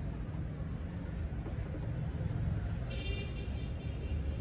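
Steady low, engine-like background rumble, with a brief high-pitched tone about three seconds in.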